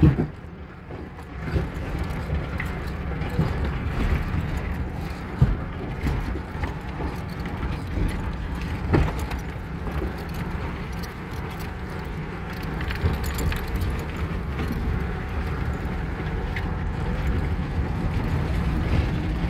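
Fiat Panda 4x4 driving down a rough off-road track: a steady low engine and road rumble with scattered knocks and rattles, and one sharp knock about five seconds in.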